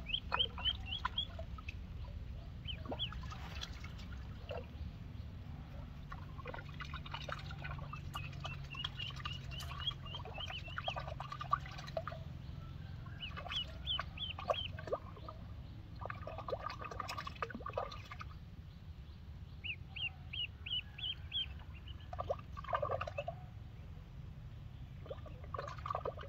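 Duckling peeping in repeated runs of quick, high cheeps. Other lower-pitched calls and knocks come between the runs, over a steady low hum.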